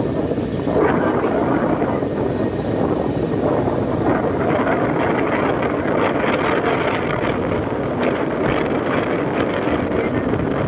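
Motorcycle ride at a steady pace: the engine running under a steady rush of wind buffeting the microphone.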